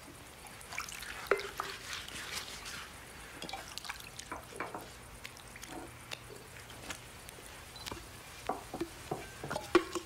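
Water splashing and dripping in a wash basin as feet are washed: small, irregular splashes and drips.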